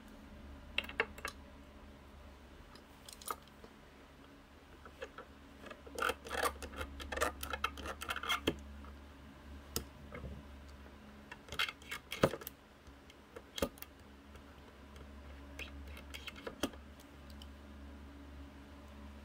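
Scattered light clicks, taps and scraping of a utility knife trimming a small leather strip and of tools handled on a wooden workbench, busiest about six to eight seconds in. A low steady hum runs underneath.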